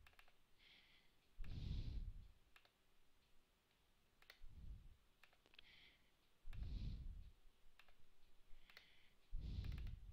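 Computer mouse clicks, scattered single and double clicks, with four soft breaths on the microphone between them.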